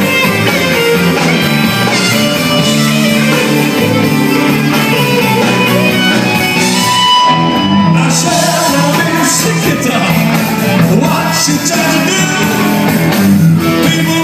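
Live Southern rock band playing loud: electric guitars and drums, with a man singing lead.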